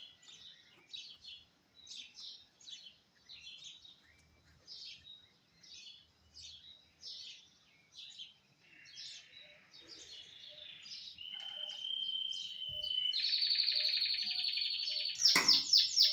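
A songbird singing: a run of short high chirps about twice a second, then a long steady whistle, a dense buzzing trill, and near the end loud rapid repeated notes, about four a second.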